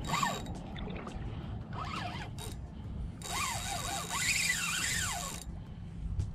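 Spinning reel being cranked hard while reeling in a hooked snook, whirring in short spells whose pitch rises and falls with the cranking speed. The longest spell comes about halfway through. Wind rumbles on the microphone.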